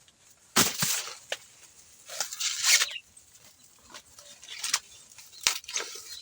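Dry corn leaves and stalks crunching and snapping in a few irregular bursts, with two sharper snaps near the end.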